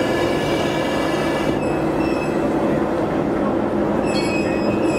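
Steel locomotive wheels squealing against the rails as a slowly moving train rolls along the yard track, over a steady low engine drone. The thin, high squeals shift in pitch about a second and a half in and come and go in short bursts near the end.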